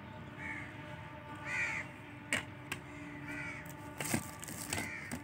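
Crows cawing about four times in the background, with sharp clicks and a crackle of plastic as the protective wrapper is handled on a new phone. The plastic crackle, about four seconds in, is the loudest moment.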